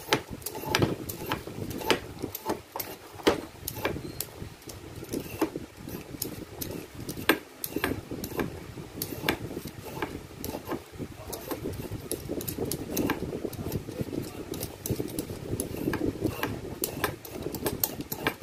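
Vegetable peeler scraping down a raw carrot in quick, irregular strokes, a few each second and quicker near the end, with light knocks on a plastic cutting board, over a steady low hum.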